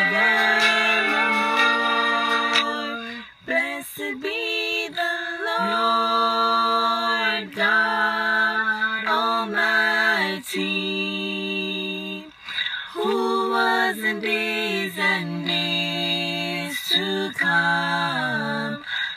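One woman's voice layered into three-part a cappella harmony, singing a slow worship song in long held phrases with short breaths between them.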